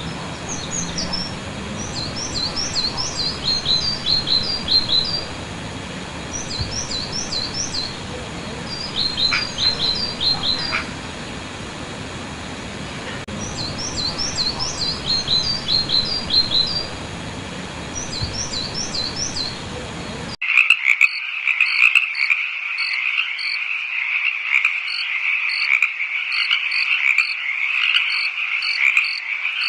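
A songbird sings repeated phrases of quick, falling chirps over a steady outdoor hiss. About two-thirds of the way through, the sound cuts abruptly to a dense, steady chorus of calling frogs with a regular pulsing trill.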